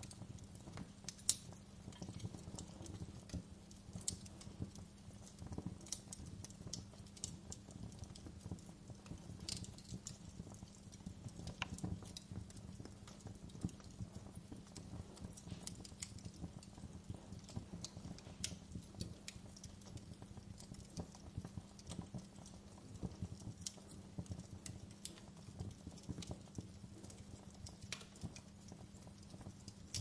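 Wood fire crackling in a fireplace: irregular pops and snaps from the burning logs over a low, steady rumble.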